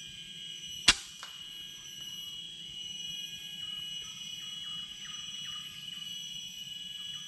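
PCP air rifle firing once: a single sharp crack about a second in, with a fainter click a moment later. A steady high-pitched drone continues throughout.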